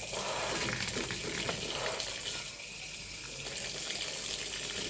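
Tap water running steadily while fresh mulberries are rinsed under it.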